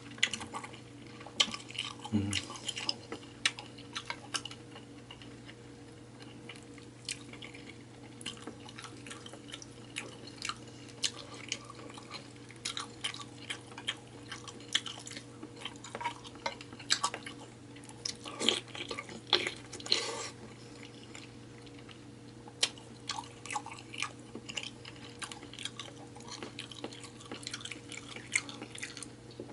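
Close-miked eating of seafood: wet chewing and smacking, with many short sharp clicks, over a faint steady hum.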